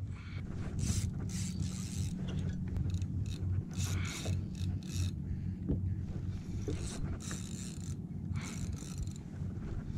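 Fishing reel under load from a large hooked fish, ratcheting and whirring in short spells again and again as the gears and drag work, over a low steady rumble.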